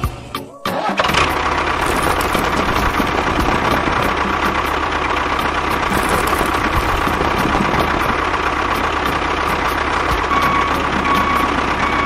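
A small motor running steadily with a light whine. It starts after a brief break about half a second in and keeps an even pitch throughout.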